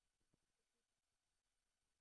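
Near silence: faint hiss with a steady high electronic tone.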